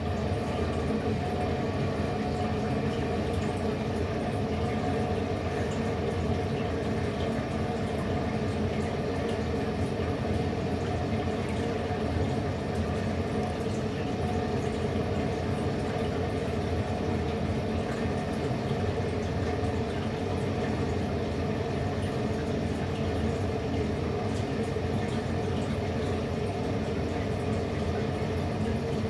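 A steady, unchanging hum with a watery hiss, like a running fan or pump.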